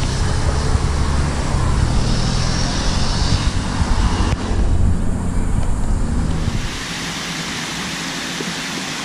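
Road traffic passing over a bridge: a steady, heavy rumble of cars. About two-thirds of the way through it gives way to the steady hiss of a fountain's water jets spraying and falling into its basin.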